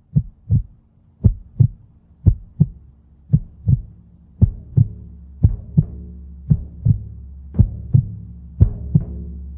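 Drum-like heartbeat, steady lub-dub pairs just under once a second. A low steady drone comes in under the beats from about halfway.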